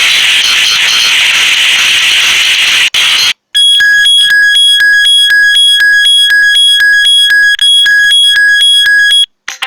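Samsung Galaxy J7 Pro ringtones playing: a harsh, hissy electronic buzz for about three seconds, then, after a brief break, a loud repeating bell-like electronic ring pulsing about twice a second with rapid ticks in between.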